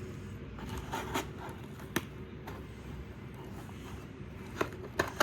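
A shipping package being opened by hand: scattered scrapes and sharp clicks of the packaging being cut and pulled apart, a few seconds apart.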